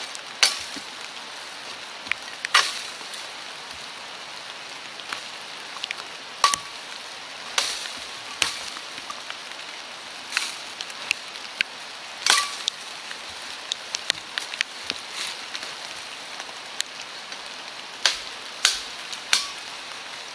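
A compact folding shovel's blade used as an axe, hacking into holly branches: about ten hard, irregularly spaced chops, with rustling of leaves between them. A steady hiss of rain runs underneath.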